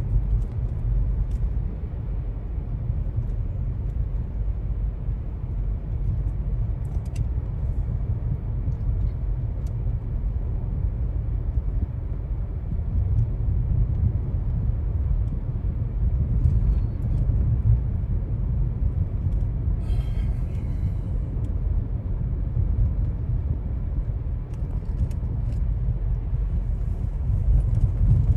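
Steady low road and engine rumble heard from inside a moving car's cabin, with a brief higher rustle about two-thirds of the way through.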